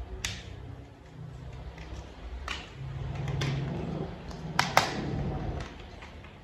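Hard plastic toy parts being handled and snapped together: several sharp clicks over low handling rumble, the two loudest clicks coming close together past the middle.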